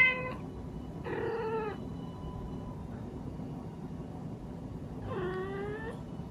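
A Munchkin cat meowing three times: the loudest meow ends just after the start, another comes about a second in, and a third, dipping and then rising in pitch, comes near the end.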